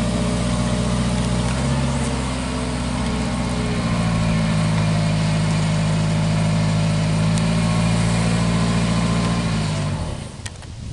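Engine of a boom lift running as the boom and basket are moved, its note shifting a couple of times, then cutting out near the end.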